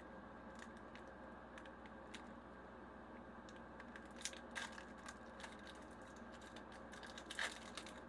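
Faint crinkling and tearing of a foil Pokémon booster pack wrapper as it is opened and handled, a few scattered crackles, the loudest about four seconds in and near the end, over a steady low hum.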